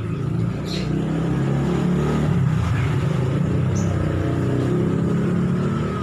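A motor running with a low, wavering hum, rising in level at the start.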